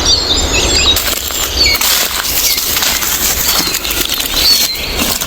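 Close crunching and rustling of dry leaf litter and twigs on a forest floor, an irregular crackle without let-up.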